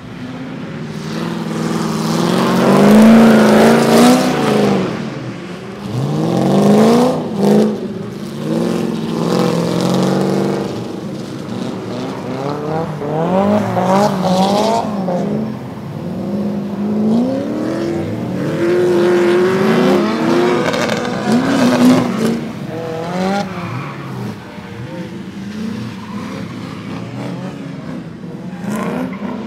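Drift cars sliding past one after another on a wet track, their engines revving up and down through each slide with tyre noise. The loudest pass comes a few seconds in, and a Nissan 350Z goes by in the middle.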